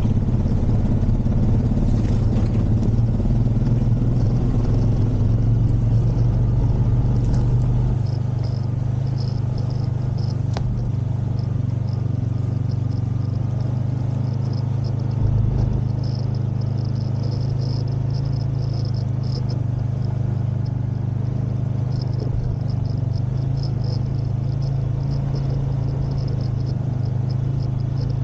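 Honda Rancher ATV's single-cylinder engine running steadily as the quad rolls through grass, with a deep low rumble that eases about eight seconds in. A single sharp click about ten seconds in.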